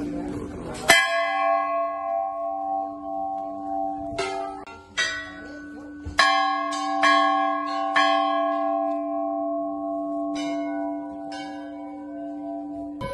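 Large hanging brass temple bells struck by hand one after another. A loud first stroke comes about a second in, then a quick run of strokes from about four to eight seconds in, and a couple more near the end. Each stroke keeps ringing for seconds, and the tones overlap over a steady hum.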